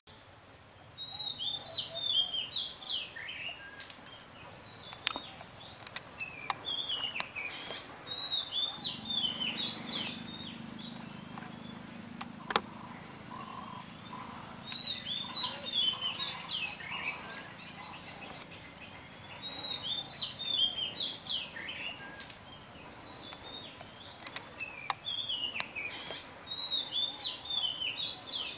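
A bird singing the same short phrase of quick, high chirping notes, repeated five times about six seconds apart.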